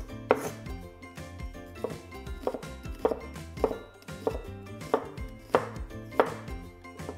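Knife chopping an onion on a cutting board: about nine slow, evenly spaced chops.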